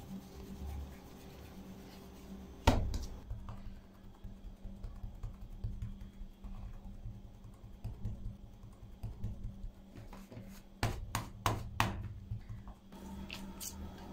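Hands working soft bread dough on a countertop: soft irregular pats and rubbing, with one sharp knock about three seconds in and a quick run of about five sharp taps near eleven seconds, over a faint steady hum.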